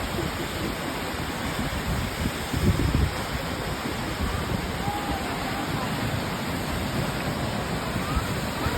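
Waterfall rushing: a steady, even noise of falling water, with low rumbles of wind on the microphone about three seconds in.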